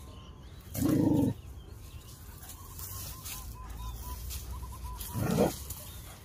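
A short, loud animal call about a second in, a dog's bark or a hen's cluck, and a shorter, rougher one about five seconds in, with faint repeated high chirps in between.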